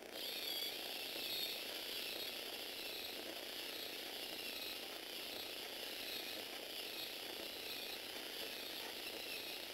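Small electric motor of a Lego Technic four-legged walking robot whining as it drives its plastic gear train and legs, with a mechanical rattle from the gears. The whine rises and falls regularly, about once a second, with each stride.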